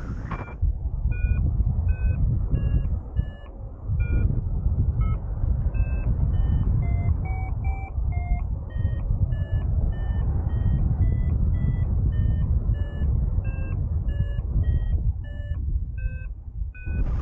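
Paragliding variometer beeping in short tones about twice a second, its pitch shifting up and down, the sound of the glider climbing in a thermal. Under it, a steady low rush of wind on the microphone.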